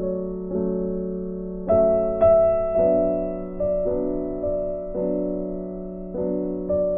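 Slow keyboard music in a piano sound, with notes struck about once a second and left to fade.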